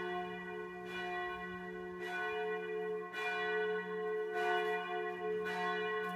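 Church bell tolling, struck about once a second, each stroke ringing on into the next so that a steady ringing tone carries between strokes.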